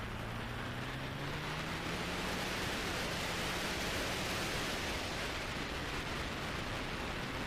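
Wind rushing over the microphone of a moving motorcycle, with the Hero Xpulse 200T's single-cylinder engine faintly heard under it, rising in pitch over the first few seconds as the bike picks up speed.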